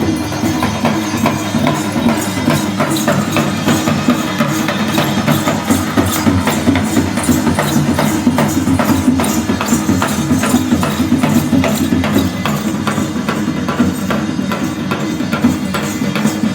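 Music with a busy, fast percussion rhythm of jingling and knocking strokes over a steady low accompaniment.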